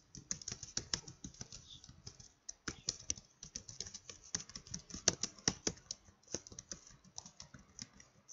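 Computer keyboard typing: irregular keystroke clicks, several a second, as a line of text is typed, with a brief pause about two seconds in.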